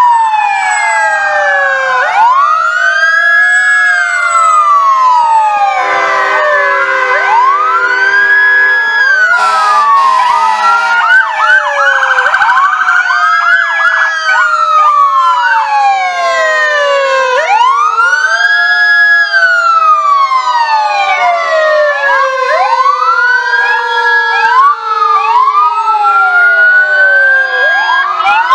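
Several emergency vehicle sirens sounding at once, their wails overlapping as they rise and fall every couple of seconds. A steady horn chord is held for about three seconds, about six seconds in, and a fast warbling yelp follows around twelve seconds.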